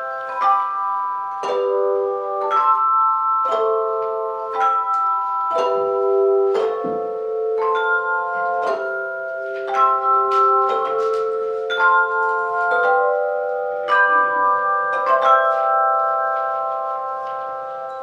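Handbell choir ringing a hymn arrangement: chords of ringing bell tones struck about once a second, each ringing on into the next. Near the end a final chord is struck and held, ringing out.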